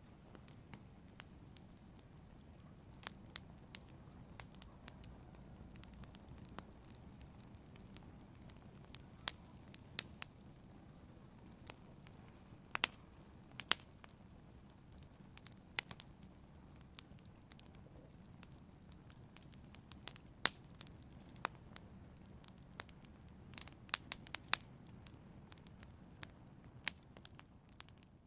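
Logs burning in a fireplace, crackling: sharp, irregular pops and snaps over a low, steady rush of the flames.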